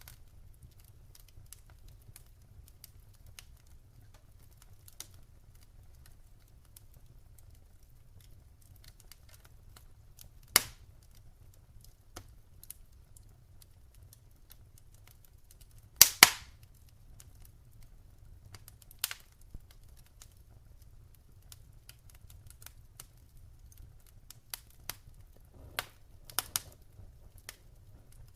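Wood fire burning in a fireplace: scattered sharp crackles and pops over a low steady rumble, with a loud pop about ten seconds in and the loudest double pop a little past halfway.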